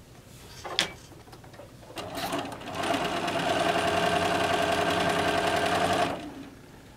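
Bernina sewing machine stitching a seam through small fabric pieces: it starts about two seconds in, comes up to speed, runs steadily and stops shortly before the end. A single sharp click comes just before it starts.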